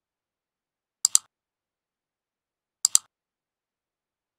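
Computer mouse clicking twice, about two seconds apart, each click a sharp double tick.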